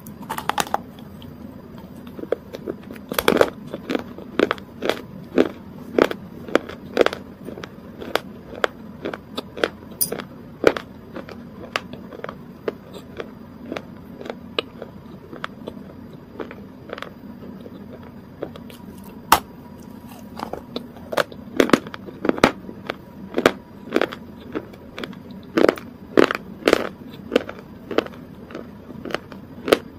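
Close-miked mouth and chewing sounds: sharp crunches and wet clicks that come in clusters, busiest a few seconds in and again after the middle, sparser in between.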